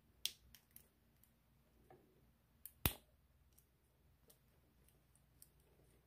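Faint, scattered clicks and light scrapes of a lock pick and tension wrench working in the cylinder of a cross-key padlock, with one sharper click a little before the halfway point.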